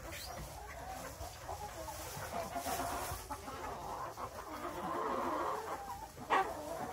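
A flock of hens clucking among themselves in an overlapping, continuous chatter, with one sharper, louder call near the end.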